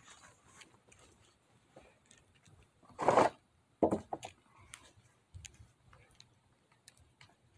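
Footsteps on dry grass and fallen leaves close by, with faint scattered crackles and two louder crunching steps about three and four seconds in.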